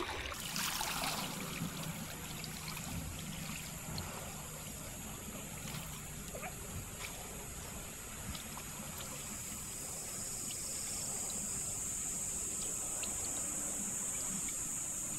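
River water swirling and trickling softly around a person wading chest-deep through the current, with a few faint ticks and splashes.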